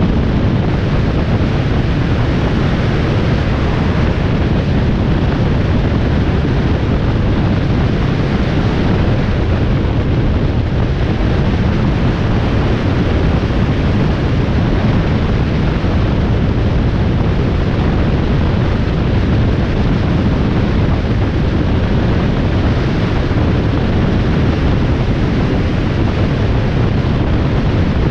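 Steady road and wind noise of a vehicle travelling at highway speed, with wind buffeting the microphone.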